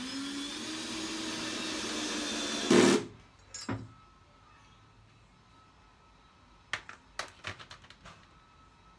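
A power drill runs for about three seconds, its motor pitch rising slightly, and ends in a short louder burst. A few light knocks and clicks follow near the end.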